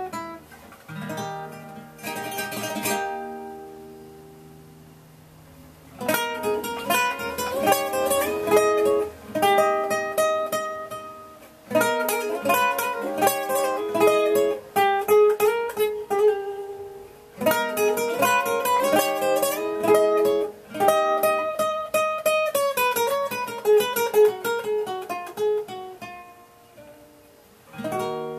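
Solo nylon-string classical guitar improvisation: a strummed chord that rings and fades, then long phrases of quick plucked notes that die away near the end.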